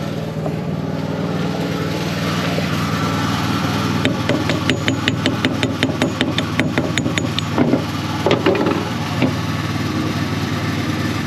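Chipping hammer rapping slag off a fresh stick weld: a fast run of sharp taps, about eight a second, for a few seconds midway, then a couple of heavier knocks. Under it an engine idles steadily.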